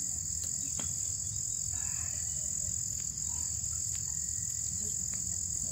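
Outdoor chorus of frogs and insects: a constant high-pitched drone, with a few faint croaks and calls.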